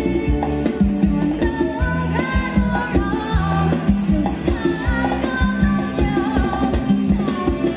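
Live band playing upbeat Thai ramwong dance music: a steady drum beat under a melody line.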